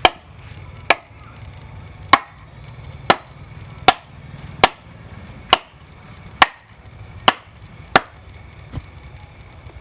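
A tool striking wood: about eleven sharp knocks, roughly one a second, the last one weaker.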